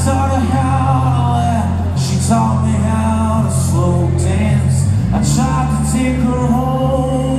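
Rock band playing live: a male lead singer holding long sung lines over electric guitars, bass and drums, with cymbal crashes every second or so.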